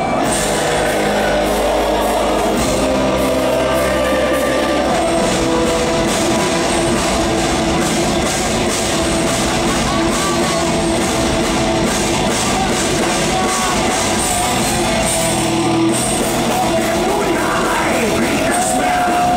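Live symphonic power metal band playing loudly, with a drum kit and electric guitars and long held notes over them, heard through a concert hall's PA from the audience.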